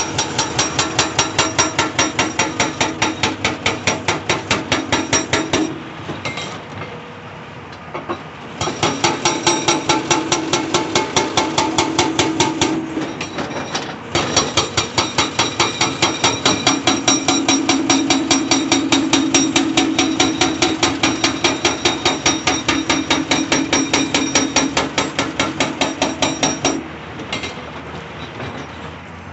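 Hydraulic breaker on a CAT 349E excavator hammering rock in rapid, evenly spaced blows, with the excavator's engine running underneath. The hammering stops for a couple of seconds about six seconds in and again near the end, then starts up again.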